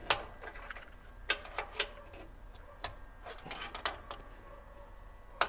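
Irregular sharp metallic clicks and taps of a hand tool working the screws of a washer's lid lock switch, the loudest at the start and near the end.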